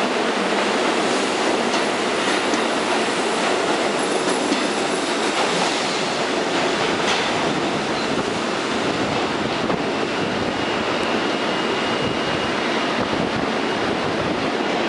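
R44 subway train pulling out of an underground station and running off into the tunnel: a steady, loud rumble and clatter of wheels on rail. A thin high tone sounds faintly through the second half.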